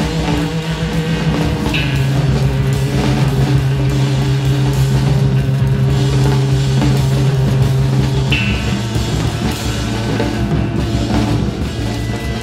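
Electric guitar and drum kit playing live improvised music. Held low guitar notes shift in pitch about two seconds in and again about eight seconds in, under busy drum and cymbal hits.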